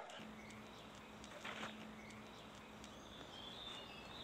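Faint outdoor background: a low steady hum that fades about halfway, a brief soft noise about one and a half seconds in, and a few faint high chirps later on.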